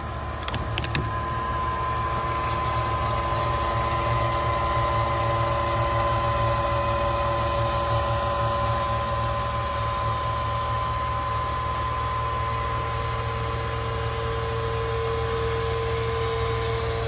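1 HP Liberty sewage pump running steadily, pumping sewage out of the basin: a constant motor hum with a high whine. About fourteen seconds in, one tone in the hum drops slightly lower. A few light clicks sound about a second in.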